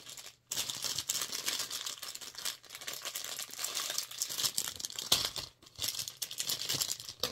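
Plastic packaging crinkling and rustling as a small item is unwrapped by hand, a steady crackle of many small clicks with a brief pause near the start.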